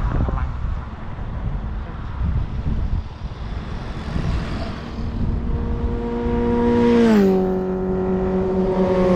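Motor vehicle engine running over a rough low rumble of wind and road noise. Its steady note drops in pitch in two steps, the second near the end, like gear changes.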